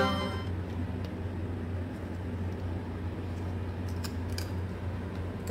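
Background music fading out just at the start, then a steady low hum of room noise with a few faint clicks about four seconds in.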